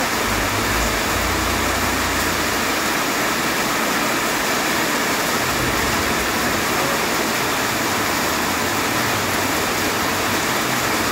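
Steady, loud rushing hiss of heavy rain.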